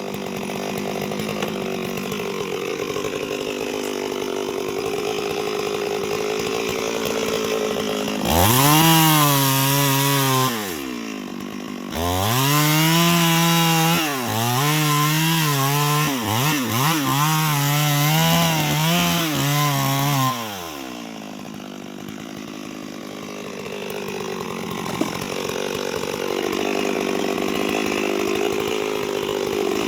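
Chainsaw idling, then throttled up hard twice, once briefly about a third of the way in and then for about eight seconds. While wide open its pitch sags and wavers as the chain cuts into wood. It drops back to idle about two-thirds of the way through.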